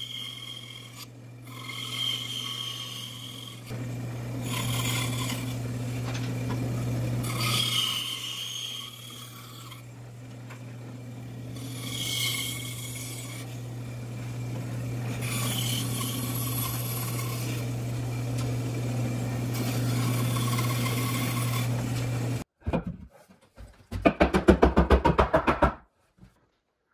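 Bandsaw running with a steady motor hum while it cuts through a pine 2x4 in several passes, each cut adding a rasping sawing noise. The saw sound stops suddenly near the end, followed by a loud two-second burst of fast, rapidly repeated strokes.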